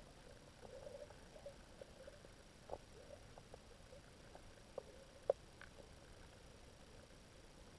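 Faint underwater ambience in a seagrass bed: a low hiss with scattered soft clicks and short pops, and one sharper click a little past halfway.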